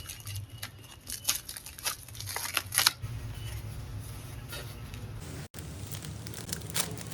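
Parcel packaging being torn and crinkled open by hand, with a run of sharp rips and rustles in the first few seconds, then softer rustling.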